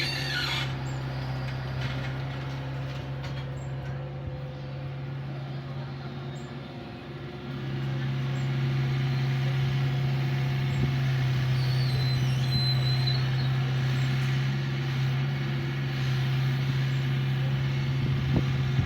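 Small excavator's diesel engine running steadily, sagging a little and then picking up again about eight seconds in.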